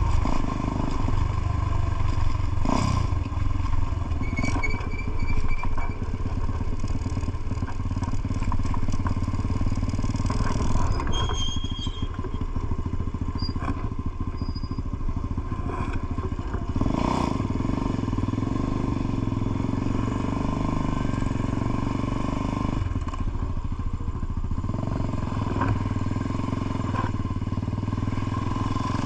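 Motorcycle engine running steadily while riding, a continuous low drone, with a few brief high-pitched tones over it.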